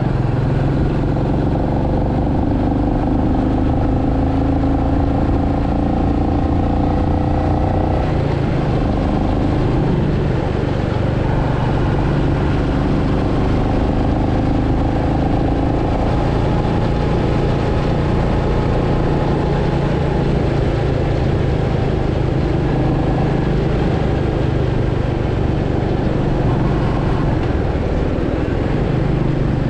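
Royal Enfield Meteor 350's single-cylinder engine and exhaust running steadily at a road cruise. The pitch shifts about eight seconds in and then rises gently and levels off as the throttle changes.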